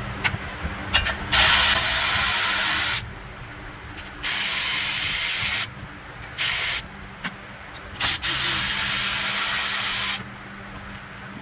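Pressurised spray hissing in four bursts, the longest about two seconds, with short clicks of tool work between them.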